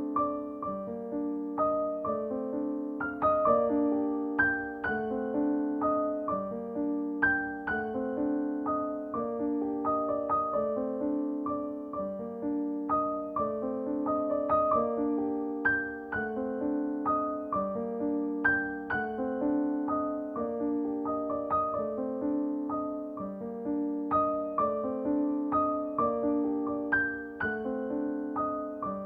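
Gentle background piano music with notes struck at a steady, even pace.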